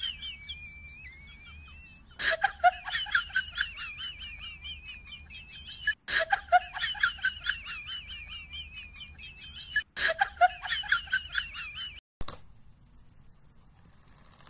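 A high-pitched, rapid giggling sound effect, the same short clip played three times in a row, each time starting with a click and cut off abruptly.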